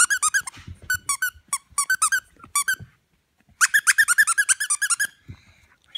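A squeaky dog toy squeaking over and over as Weimaraner puppies chew on it. The squeaks come in quick runs of several a second, with a pause about halfway through.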